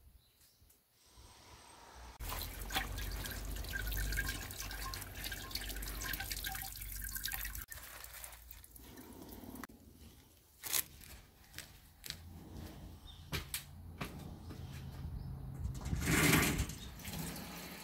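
Water running from a tap and splashing over fresh-picked vegetables in a plastic colander, stopping about seven and a half seconds in, followed by a few scattered clicks and drips.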